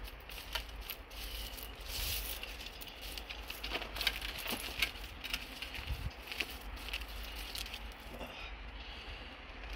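Dry grass and plant litter crackling and rustling in irregular short bursts as it is pulled and raked up by hand.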